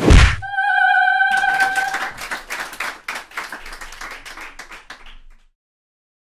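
A sharp loud hit, then a steady held tone with overtones for about a second and a half, overlapped by a rapid clatter of clicks that fades out over about four seconds and stops abruptly.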